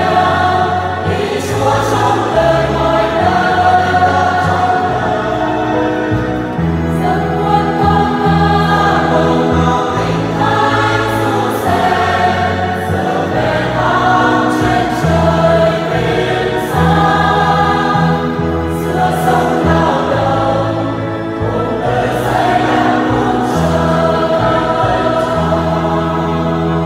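Mixed church choir singing a Vietnamese Catholic hymn in parts, over sustained low bass notes that change with the chords.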